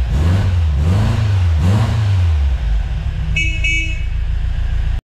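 Car engine running and revving up and down, with two short toots of a car horn about three and a half seconds in. The sound cuts off suddenly near the end.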